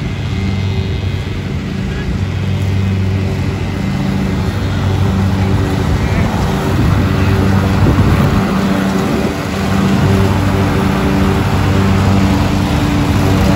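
Lawn mower engine running steadily under load while mowing, getting louder about halfway through with a brief dip later.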